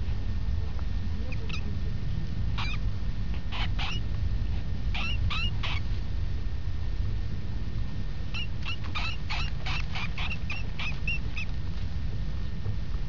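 A mouse squeaking in short, sharp, high squeaks: a few spaced ones at first, then a quick run of about a dozen about eight seconds in. A steady low rumble runs underneath.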